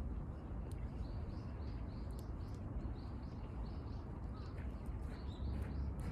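A small bird chirping repeatedly, short high calls about three a second, over a steady low rumble, with a few faint sharp clicks.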